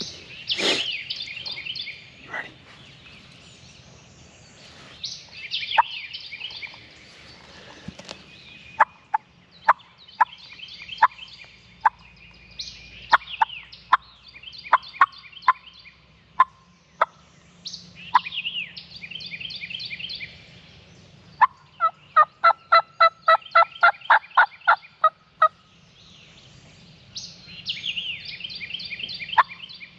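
Wild turkey gobbling several times, a few seconds apart. Sharp single clucking notes fall between the gobbles, and a fast run of yelps comes about two-thirds of the way through.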